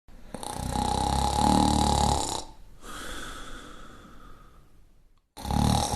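A person snoring: a long, loud snore on the in-breath lasting about two seconds, a softer breath out that fades away, then the next snore starting near the end.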